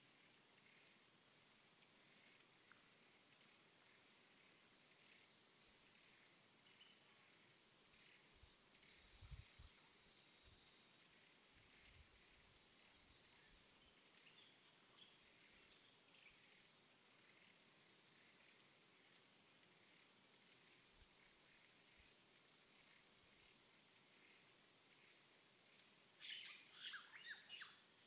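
Faint outdoor nature ambience: a steady high-pitched insect drone with scattered faint bird chirps, and a quick run of louder bird calls near the end.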